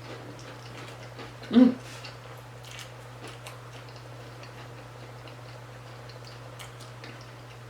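Chewing a crunchy hard taco shell: scattered small crunches and clicks, with one short, loud vocal sound from the eater about one and a half seconds in.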